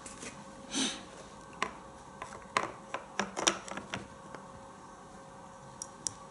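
Sauer 404 rifle being handled and turned over by hand: a brief rustle about a second in, then a run of small sharp clicks and knocks over the next few seconds, and two faint ticks near the end.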